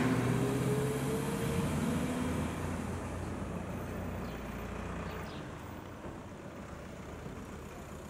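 A motor vehicle's engine running close by and fading away over several seconds, over steady street noise.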